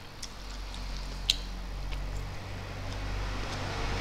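Eating sounds: fingers picking at fried prawns and rice, with soft wet squishing and a few sharp clicks, the loudest about a second in, over a low steady hum.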